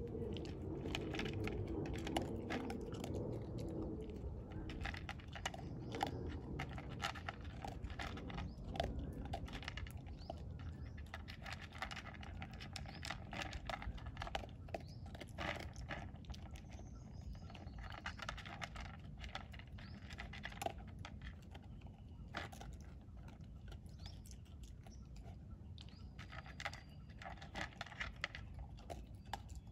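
A dog eating from a plastic bowl: irregular chewing and crunching clicks, several a second, going on throughout.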